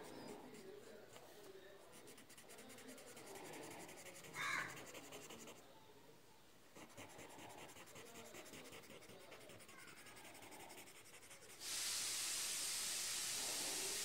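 Cotton swab rubbing over graphite shading on drawing paper, a faint scratchy rasp. A bird calls once about four and a half seconds in. Near the end a loud, steady hiss cuts in suddenly.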